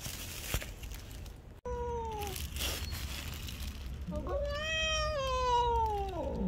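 Cat meowing: a short meow that falls in pitch about a second and a half in, then a long drawn-out meow that rises and then falls, ending near the end.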